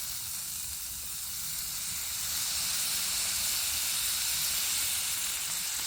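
Hot grill pan sizzling with a steady hiss of steam, growing slightly louder in the middle.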